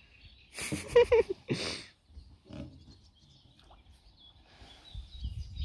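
A large hooked carp thrashing and splashing at the surface beside the landing net. There are two short splashes about a second in, with a brief grunting voice between them.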